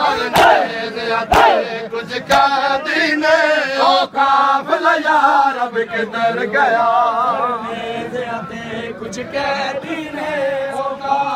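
Crowd of men chanting a Punjabi noha lament in chorus, their voices wavering in pitch. Sharp chest-beating slaps (matam) land about once a second, strongest in the first two seconds, then fade under the chanting.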